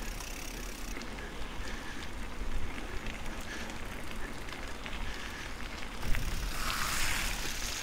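Mountain bike tyres rolling steadily along a dirt trail. Near the end the tyres run through a wet, puddled stretch, and the rolling turns into a louder spraying hiss.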